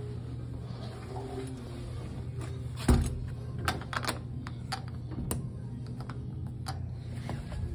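A metal toilet-stall door knocks once loudly about three seconds in, followed by a series of metallic clicks and knocks as its slide-bolt latch is worked by hand. A steady low hum runs underneath.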